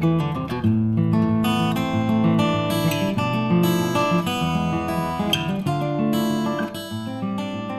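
Outro music: strummed acoustic guitar chords, getting quieter near the end.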